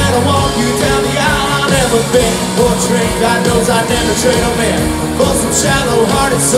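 Live country band playing loudly, with drums and electric guitars keeping a steady beat.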